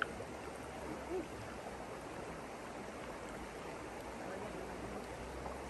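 Steady rush of flowing water in a hot spring stream, with a brief faint voice about a second in.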